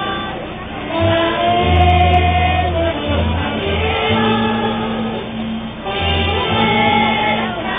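A group singing a song over musical accompaniment, with a bass line of held low notes beneath the voices.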